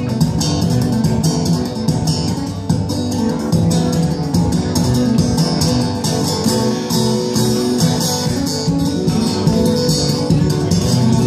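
Acoustic guitar played solo in a quick, even stream of picked and strummed notes, ringing chords underneath.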